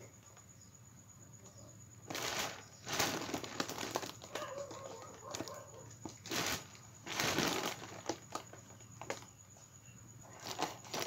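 Large foil balloon crinkling and rustling as it is pressed by hand to squeeze the air out through a pipe. The rustles come in several bursts, starting about two seconds in.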